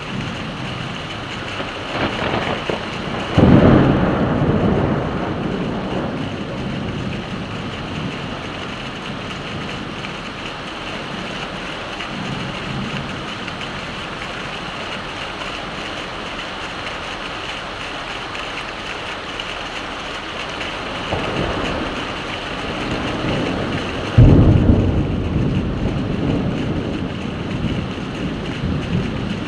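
Heavy rain falling steadily, with two sudden loud claps of thunder, one about three seconds in and one near the end, each rumbling away over a few seconds.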